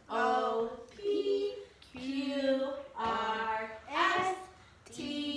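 A child singing a slow song, one held note after another with short breaks between them.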